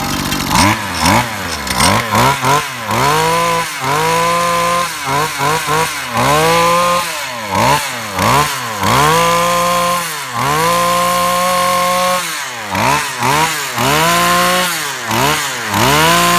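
Zenoah Komatsu BKZ3050 brush cutter's 30cc two-stroke engine, freshly started, being revved again and again: the pitch rises and falls with each blip of the throttle, a few revs held at high speed for a second or so before dropping back.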